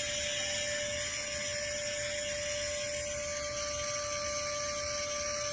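Vacuum cleaner running steadily: a constant motor whine over an airy hiss.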